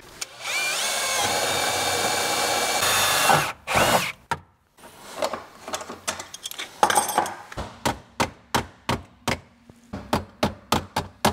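A cordless drill spins up and runs steadily for about three seconds, then stops. It is followed by a run of sharp knocks on the car's sheet-metal transmission tunnel, about two a second, as the metal is struck with a hand tool.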